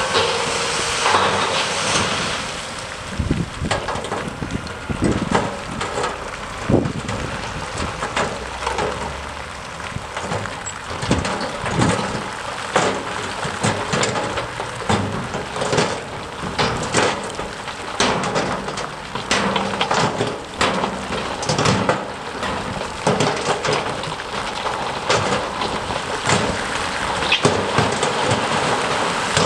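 Earth and stones sliding and tumbling out of the raised steel tipper body of a Mercedes-Benz Actros dump truck: a steady rushing with many small knocks of rocks, over the truck's diesel engine running.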